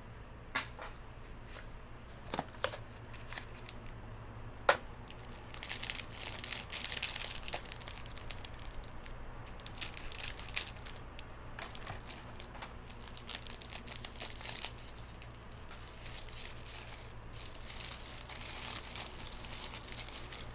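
Packaging crinkling and tearing as an item is worked free of it by hand. A few sharp clicks and taps come in the first few seconds, then the crinkling runs almost continuously with short pauses.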